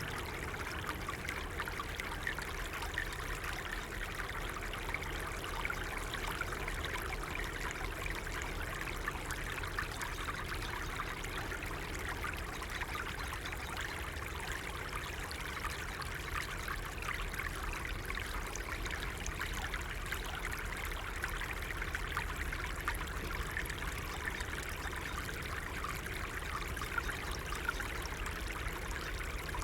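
A small stream flowing and trickling steadily.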